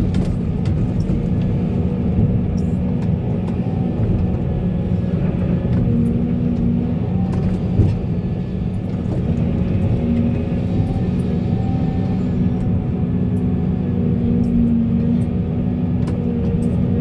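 Heavy diesel machinery running steadily, most likely a Volvo excavator's engine working: a continuous low drone with faint tones that rise and fall every few seconds and scattered light ticks.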